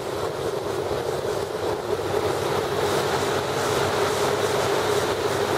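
Engine and caged air propeller of a small hovercraft running steadily while under way, heard from on board: an even drone with a rushing hiss over it.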